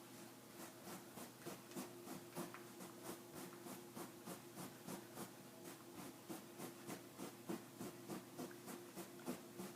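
A white cloth scrubbed back and forth over food stains, about three strokes a second. It starts about half a second in and stops near the end.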